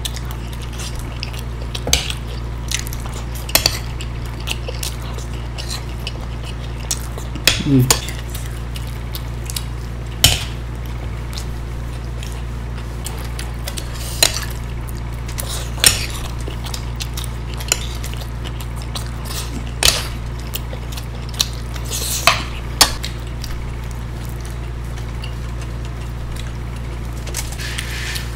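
Spoons clinking and scraping against plates, with sharp clicks every second or two, over a steady low hum.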